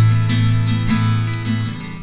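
Band music with a strummed acoustic guitar playing ringing chords, no singing. It grows quieter near the end.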